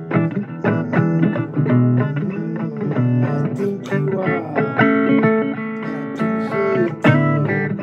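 Blues guitar playing an instrumental passage: a run of picked notes with bent, gliding pitches over low held notes.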